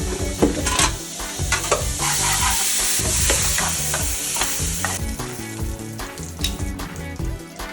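Breaded chicken breast fillets frying in hot oil, sizzling, with a utensil clicking and scraping against the pan. The sizzle grows louder for about three seconds, starting around two seconds in.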